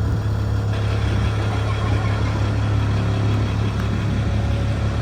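A tour vehicle's engine running with a steady low hum, under a wash of road and motor noise.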